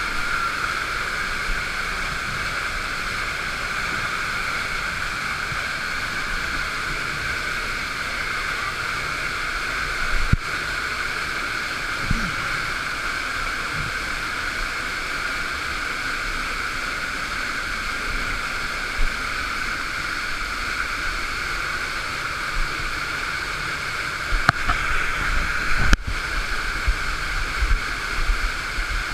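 Waterfall pouring steadily: an even rush of falling water, with a few short low knocks near the end.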